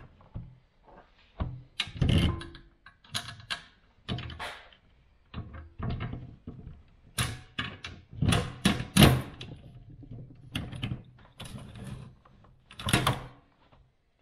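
Irregular metal clunks, clicks and scrapes of a car seat's steel runners being worked onto a swivel seat base during a test fit. The loudest knocks come about two seconds in, around eight to nine seconds, and near the end.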